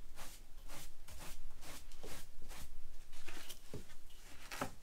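Broom sweeping the floor: short scratchy strokes in an irregular rhythm, two or three a second.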